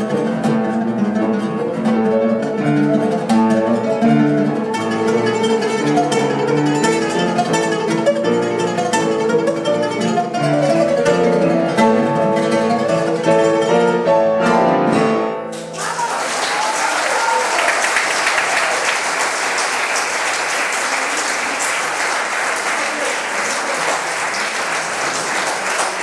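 Oud played solo in quick plucked runs, closing about fifteen seconds in with a few strong final strokes. Audience applause follows.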